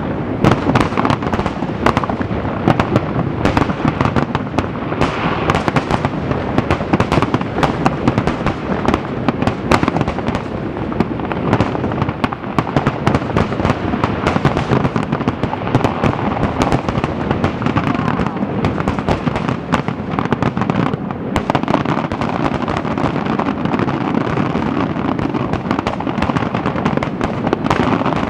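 Fireworks shells bursting in a dense, continuous barrage: sharp bangs follow one another in quick succession over a steady rumble, with no break.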